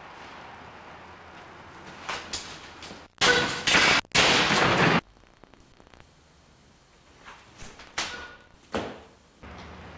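Japanese sword test-cutting: short sharp swishes and snaps of a katana blade cutting through a bamboo target, a couple around two seconds in and several more near the end, over steady tape hiss. In between, a loud harsh noise burst about two seconds long, broken once in the middle.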